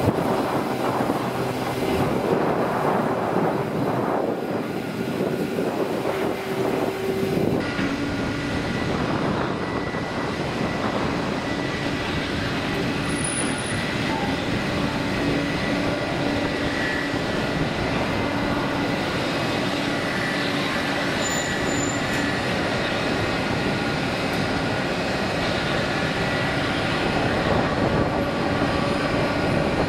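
An ATR 72-600 turboprop's engines and propellers droning steadily as it climbs away after takeoff. About seven and a half seconds in, the sound changes abruptly to an Airbus A321neo's jet engines running steadily with a high whine as it taxis.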